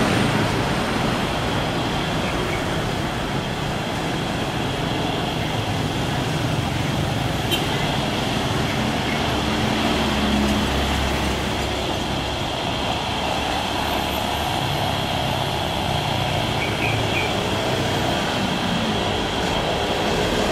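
Airbus A330 airliner's jet engines during touchdown and the landing roll, a steady rushing noise with a stronger low rumble about ten seconds in.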